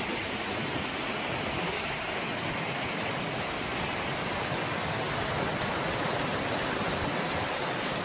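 Floodwater rushing in a steady, unbroken roar.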